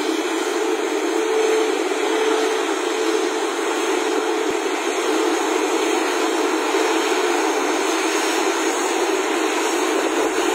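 The Rolls-Royce Trent XWB-97 turbofans of an Airbus A350-1000 running at taxi idle: a steady jet noise with a low hum held through it, growing a little louder near the end as the aircraft comes closer.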